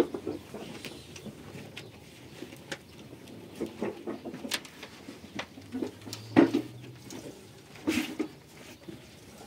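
Scattered light knocks and rustles of things being handled, with two louder knocks about six and eight seconds in.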